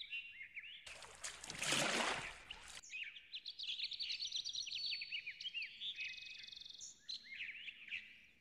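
Small birds chirping and singing in quick, repeated short notes. About a second in, a brief rushing noise rises and fades over roughly two seconds.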